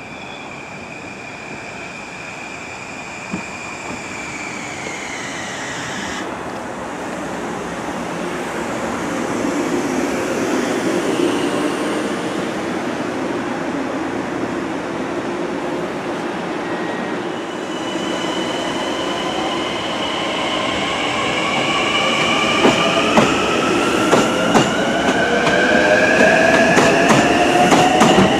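Long Island Rail Road train running past, getting louder throughout. A whine of several tones falls and stops in the first few seconds, and from about two-thirds of the way in a whine rises steadily as the train picks up speed, with wheels clicking over rail joints near the end.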